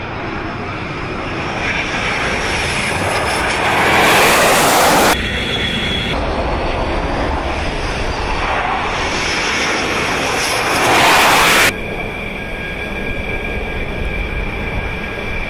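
Jet noise from the twin Snecma M88 turbofans of Dassault Rafale M fighters approaching a carrier deck to land: a steady roar that swells loudest twice, about four and eleven seconds in, and each time cuts off suddenly. A thin high whine runs through the last few seconds.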